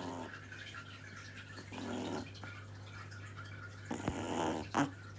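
Sleeping two-month-old Shih Tzu puppy snoring softly, one snoring breath about every two seconds, with a short louder one near the end.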